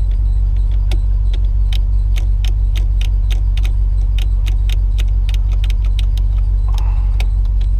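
Turn signal flasher in a 2003 Chevrolet Silverado clicking steadily, about three clicks a second, over a steady low engine hum, while the repaired multi-function switch is tested.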